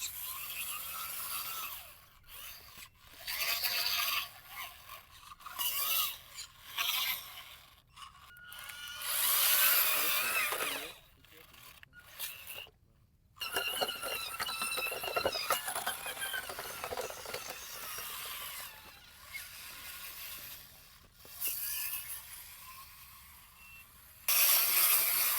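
Small electric motors and gearboxes of radio-controlled toy construction vehicles whirring and whining in spurts. They start and stop repeatedly as the machines are driven and worked.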